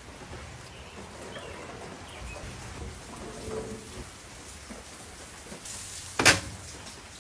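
Tomahawk steaks sizzling on a hot grill grate, a steady hiss, with one sharp knock about six seconds in as a steak is set down on a wire rack.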